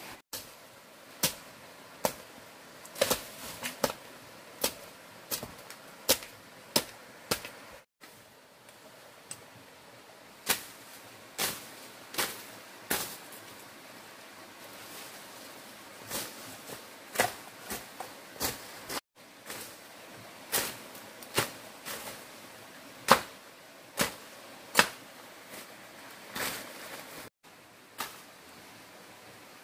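A machete chopping through brush and dry stalks: sharp, irregular strikes, often one or two a second, with short pauses between runs.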